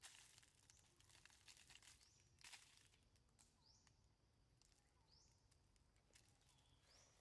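Near silence: faint outdoor ambience with short, high rising chirps repeating every second or so, and rustling in the first few seconds.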